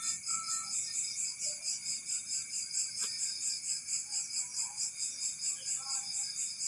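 Night insects, crickets, chirping in a steady high-pitched chorus that pulses evenly about four times a second, with a faint click about three seconds in.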